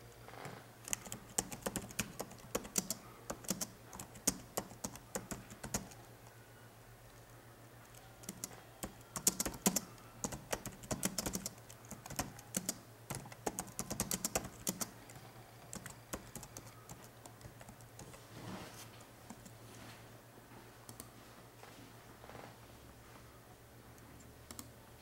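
Typing on a computer keyboard in quick runs of keystrokes. There are two main bursts with a short pause between them, then only a few scattered keystrokes toward the end, over a faint low steady hum.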